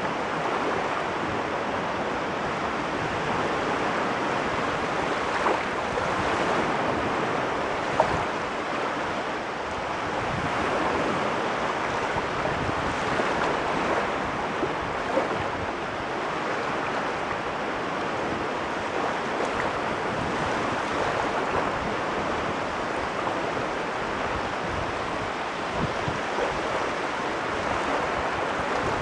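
Caspian Sea waves washing on the shore in a continuous wash that swells and eases, with an occasional brief click, the sharpest about eight seconds in.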